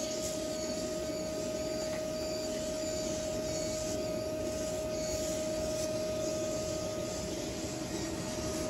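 A steady machine drone with one constant whine, like a running motor, under a light rustling of a plastic garbage bag being handled.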